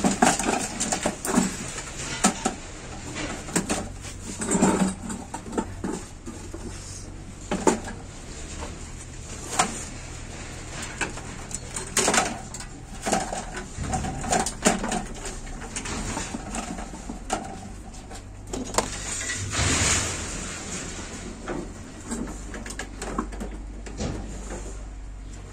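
Irregular clanks, knocks and scrapes of a sheet-steel PC case being taken apart by hand: the side panel pulled off, then the power supply box and its wiring worked loose. A longer scrape comes about twenty seconds in.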